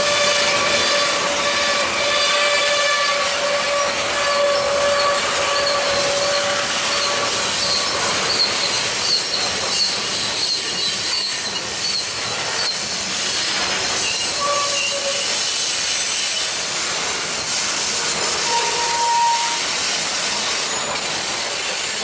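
Covered hopper cars of a freight train rolling past close by, steel wheels running on the rails in a steady noise. High wheel squeal rings over it for the first several seconds, then comes back in two brief squeals later on.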